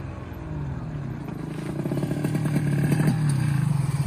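Motorcycle engine running as it rides up, growing steadily louder, then dropping off near the end as it slows.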